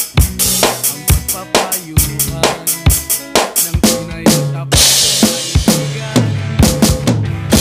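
Drum cover on a Lemon T850 electronic drum kit played along with the recorded song: a steady kick-and-snare beat with a cymbal crash about five seconds in.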